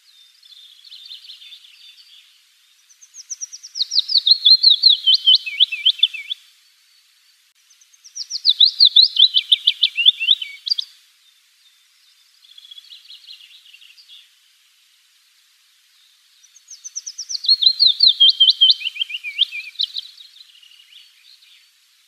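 Willow warbler singing: three loud phrases, each a run of clear, quick notes that steps down from high to lower pitch over about three seconds. Fainter song phrases come in between them.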